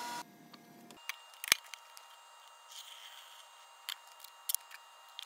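A steady hum cuts off just after the start, then a single loud, sharp click about a second and a half in, followed by a few softer clicks and taps.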